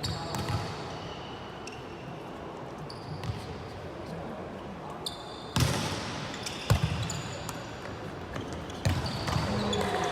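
Volleyball rally sounds: the ball is struck sharply several times, about four hard smacks spread through the stretch, over steady court background with short high squeaks and voices.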